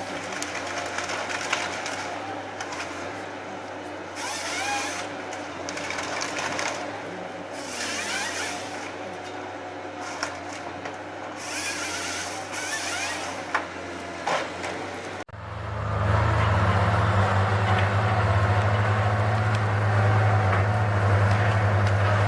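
Chainsaw cutting through tree trunks, the saw rising into loud bursts every few seconds over a steady running drone. About fifteen seconds in, the sound cuts sharply to a heavy machine's engine running steadily and louder.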